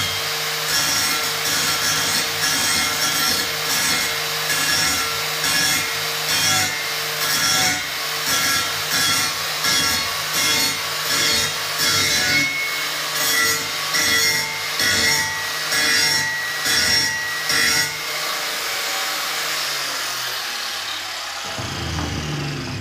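Angle grinder with an abrasive disc grinding a steel tube frame, the grinding noise swelling and easing in a steady rhythm a bit faster than once a second over a steady motor whine. About eighteen seconds in the grinding stops and the motor's whine falls in pitch as the disc spins down, with a low knock near the end.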